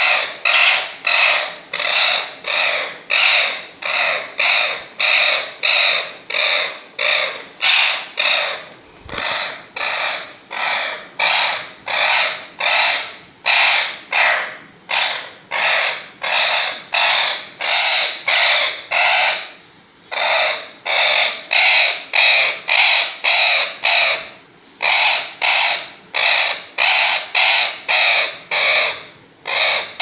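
A parrot screeching harshly over and over, about one and a half calls a second, while it is held and restrained for treatment, with a couple of short pauses in the middle.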